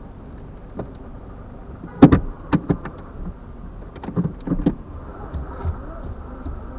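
Low steady rumble of a car in motion, heard from inside, with a quick cluster of sharp knocks and clatters about two seconds in and another around four seconds in.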